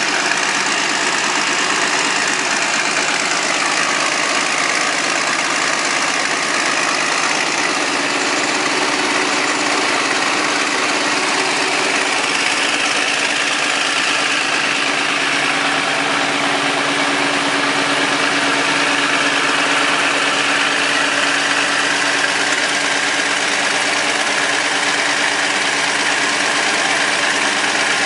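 Vintage Caterpillar D13000 diesel engine running steadily as the power unit for a sawmill. A faint whine drops in pitch about three seconds in.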